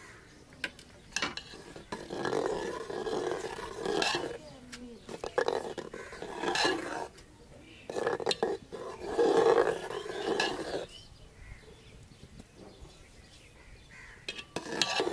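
Long metal ladle stirring and scraping through milky kheer in a large aluminium pot, in three spells of a few seconds each, with knocks of metal on metal.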